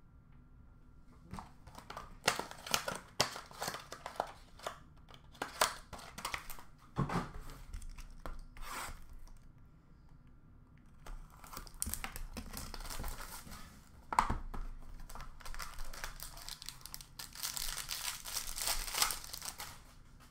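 Hands tearing open and crinkling the packaging of a box of Upper Deck Stature hockey cards and its packs: scattered sharp rips in the first half, then a denser run of crinkling near the end.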